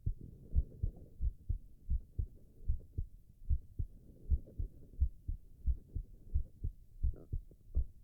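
A man's heartbeat: a steady rhythm of low lub-dub thumps, somewhat faster than one beat a second.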